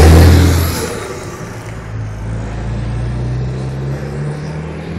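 DAF XF 105 truck with a loud straight-through exhaust pipe passing very close and pulling away under throttle. Its PACCAR MX straight-six diesel is loud for the first second, then drops away sharply. The engine note climbs as it accelerates, falls at a gear change near the end, and fades into the distance.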